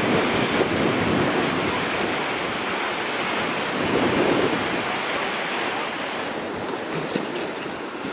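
Storm surf in a strong wind, washing over a sloping concrete shore and breaking against a concrete seawall. It is a steady rush of churning water, with a bigger surge about halfway through.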